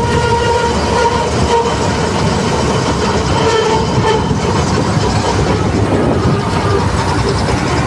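Combine harvester running on the road: a heavy, steady engine rumble with a pitched whine on top that wavers and breaks off now and then.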